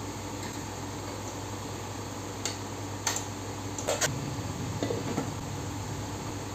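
Steady hum of an induction cooktop running under a steel frying pan, with a few sharp metal clinks and a glass lid being set down on the pan near the end.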